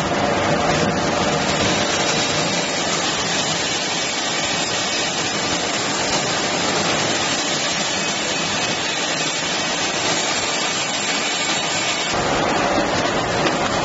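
Steady whirring and hissing of an automatic popcorn bottle filling, capping and labelling line running, with a change in tone about twelve seconds in.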